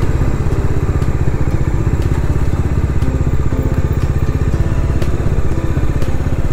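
Motorcycle engine running steadily with an even, rapid firing pulse as the bike is ridden at low speed, heard close up from the rider's own bike.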